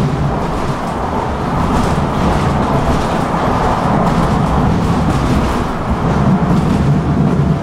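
A tram running along its track, heard from inside the passenger car: a steady low rumble with no sudden events. A faint steady tone comes in near the end.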